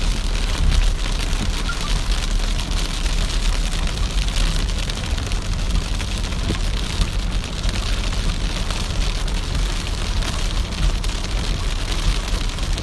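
Rain pattering densely on a car's windshield and roof, heard from inside the moving car over a steady low road rumble.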